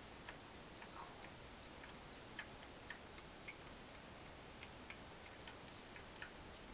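Faint, irregular little clicks of a Siamese kitten suckling at a cat's belly, over a steady low hiss.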